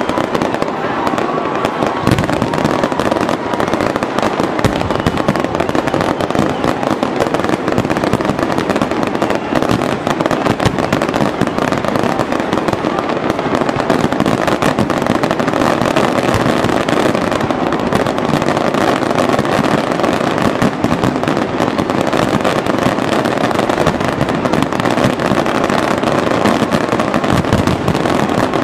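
Fireworks and firecrackers going off in a dense, unbroken crackle of overlapping bangs, with a few deeper booms.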